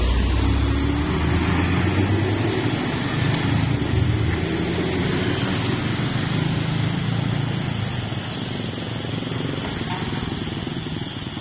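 A large bus's diesel engine running as the bus passes close by and pulls away, its sound slowly fading. Motorcycle engines follow as motorbikes ride past.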